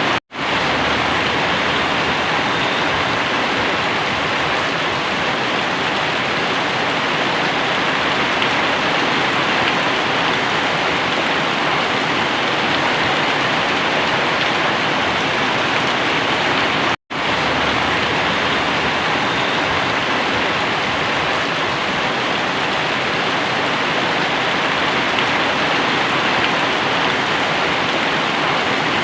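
Very heavy rain pouring down in a dense, even hiss. The sound cuts out for a split second twice: just after the start and about 17 seconds in.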